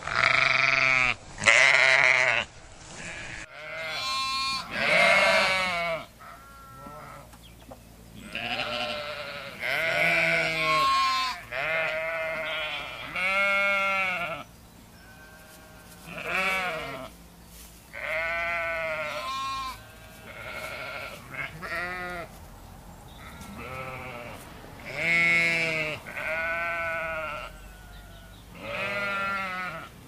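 A flock of sheep bleating over and over, one call after another at different pitches. Each bleat lasts about a second and has a quavering tremble.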